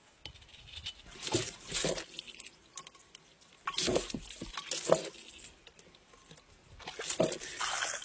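Water splashing and gushing through a bamboo pipe in three separate bursts, with a couple of knocks in the middle.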